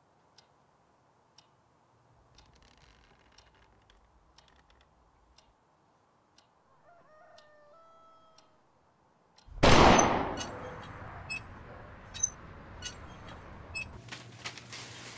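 A rooster crowing once, faintly, about seven seconds in. About two seconds later comes a sudden loud bang that dies away, followed by scattered sharp clicks.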